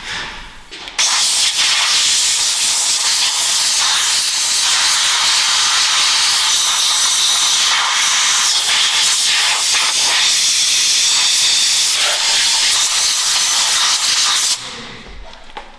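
Compressed air blowing through a blow gun's long nozzle into the bore of a brake caliper: a loud, steady hiss that starts about a second in and cuts off sharply near the end.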